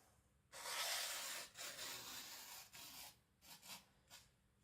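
Freshly sharpened Victorinox Chinese cleaver drawn through paper in a sharpness test: a dry rubbing hiss lasting about two seconds, then a few short scrapes.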